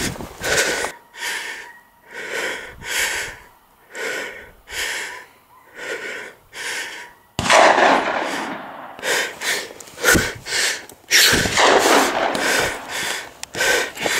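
A person breathing hard and heavily, a puff about once a second, out of breath from moving over steep rocky ground. About seven seconds in a sudden louder rush of noise comes in, and the hard breathing goes on over it.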